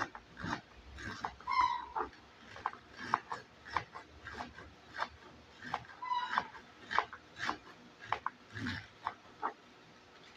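Kitchen knife slicing a cabbage into thin shreds on a plastic cutting board: a steady run of crisp cutting strokes, two or three a second. Twice, about one and a half seconds in and again about six seconds in, a short high-pitched squeal sounds over the cutting.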